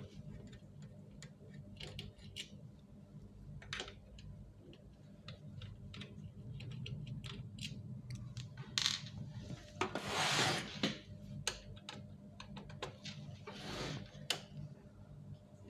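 Plastic and metal parts of a laser printer being handled during disassembly: scattered light clicks and taps, with a brief scraping rush about ten seconds in as a part slides. A steady low hum runs underneath.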